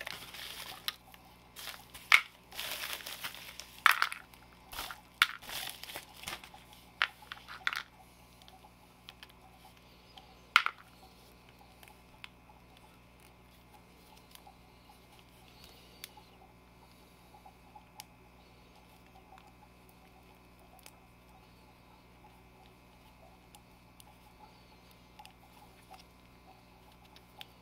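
Plastic mailer bag and bubble wrap crinkling in bursts as an action figure is pulled out, then quiet handling of the plastic figure with scattered small clicks and one sharper click about ten seconds in.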